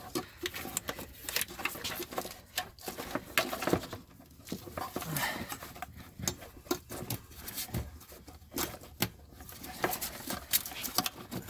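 Irregular clicks, taps and rustling as a plastic wiring-harness plug, the resistor-module cable, is worked loose from a golf cart's Danaher motor controller, with the wires around it being handled.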